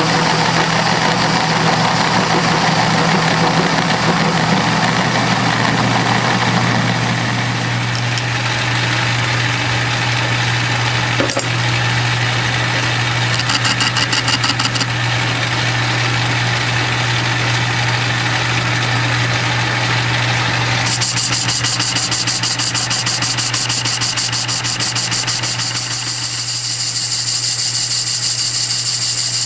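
Metal lathe running while a carbide tool faces off a cast-iron bar; the cutting noise dies away about seven seconds in, leaving the lathe's steady hum. About 21 seconds in a new cut starts, with a fast, even rhythm.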